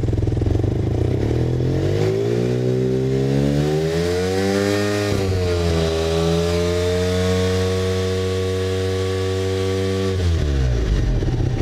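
1975 Suzuki RE5's single-rotor Wankel rotary engine idling, then revved up over a few seconds and held steady at about 7,000 rpm, before dropping back to idle near the end.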